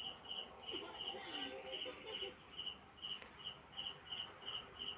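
Cricket chirping steadily, short even chirps at about three a second.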